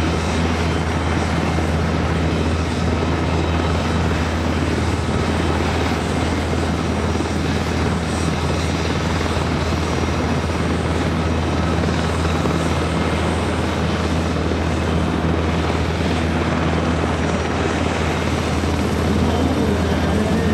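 French Navy Aérospatiale Alouette III helicopter running steadily in a hover and slow flight: the rotor makes a steady low beat over the turbine noise. It grows slightly louder near the end as the helicopter comes in low and close.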